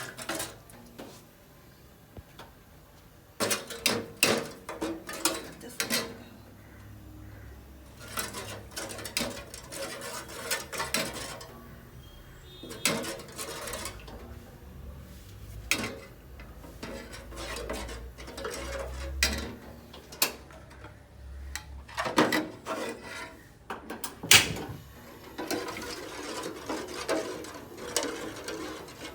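Kitchen utensils clinking, knocking and scraping against a vessel in scattered bursts as dry ginger is stirred into coconut milk. The loudest is a sharp knock about 24 seconds in.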